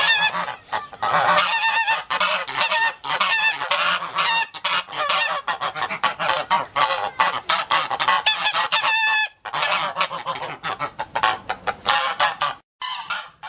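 A dense chorus of many animals calling over one another: short, high, honking calls in quick succession. The chorus breaks off briefly about nine and a half and again about twelve and a half seconds in.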